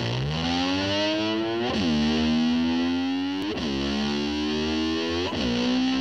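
Music: a distorted electric guitar holding slowly rising notes, swooping sharply down in pitch and back up about every two seconds.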